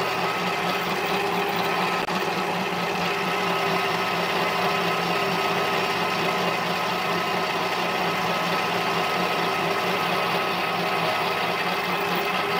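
Mini lathe running steadily with a whine, its tool bit turning down the outside diameter of a 6061 aluminium pulley blank held on an arbor.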